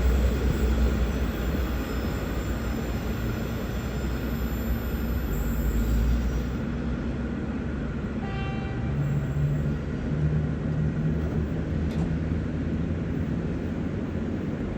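V/Line N-class locomotive-hauled passenger train running along the rails, a steady deep rumble that is heaviest for the first several seconds and then eases.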